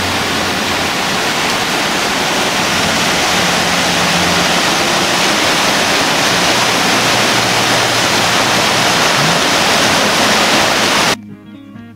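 Mountain creek rushing loudly over rocks and small cascades, a steady noise of running water. It cuts off suddenly near the end, giving way to acoustic guitar music.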